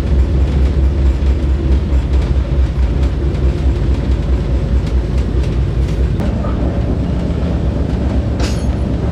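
Inside a moving passenger train's sleeper coach: a steady low rumble of the carriage running on the rails, with faint clicks. A short, sharper sound cuts in briefly near the end.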